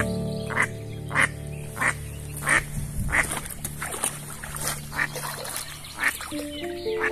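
Ducks quacking in a steady series, about one and a half quacks a second, over soft background music.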